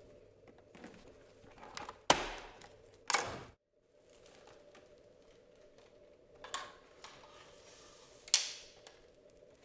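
Plastic parts of a Dyson DC15 upright vacuum's hose being handled and fitted: four sharp plastic clicks and knocks, spaced a few seconds apart, over quiet room tone.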